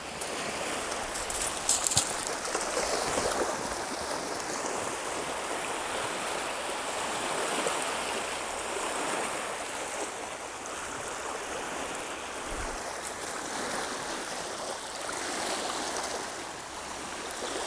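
Small waves washing up the shore and running back, a steady rush of water that swells and eases every few seconds, with a few sharp clicks about a second or two in.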